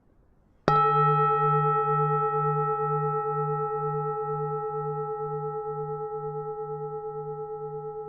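A Buddhist temple bell struck once, about a second in, then ringing on as it slowly fades, its deep hum wavering about twice a second.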